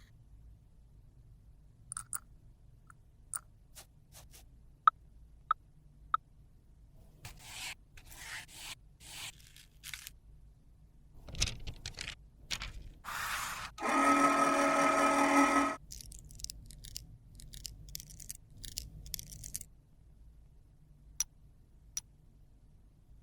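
Small hand tools working makeup in its containers: scattered clicks and taps, then scraping. Around the middle a small electric motor, such as a mini mixer, buzzes loudly for about two seconds and cuts off.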